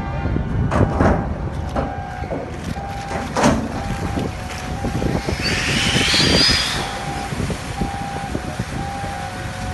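Steady low rumble of heavy port machinery with a beeping tone that repeats on and off, a few sharp knocks, and a louder rushing noise with a wavering high squeal about five and a half to seven seconds in.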